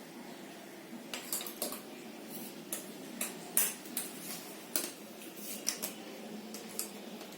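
Jigsaw puzzle pieces being handled, giving a string of light, sharp clicks and taps at irregular intervals that starts about a second in.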